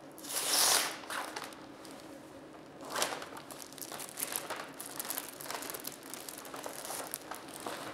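A sterile table pack's paper peel pouch and blue sterile wrap being opened and handled. There is a loud rustling peel about half a second in and another about three seconds in, with light crinkling of the paper and wrap throughout.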